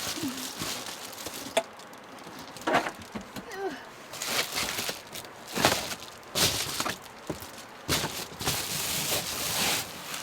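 Rustling, scraping and scattered knocks of homemade insulation panels being handled and fitted into a Volkswagen Vanagon's pop-top tent, in irregular bursts.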